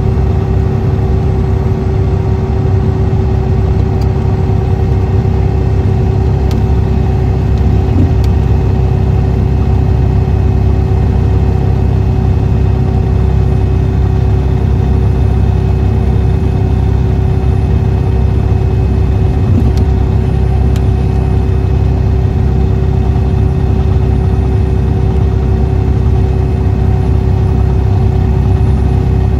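A 2014 Motor Coach Industries D4500CT coach with a Cummins ISX diesel six, running steadily: a constant engine drone with a steady whine that holds one pitch throughout.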